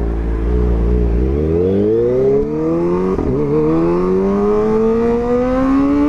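Kawasaki ZX-25RR inline-four with an aftermarket Pro Liner exhaust pulling away under acceleration. The engine note holds low for about a second, then climbs steeply in pitch, dips briefly at a gear change about three seconds in, and climbs again.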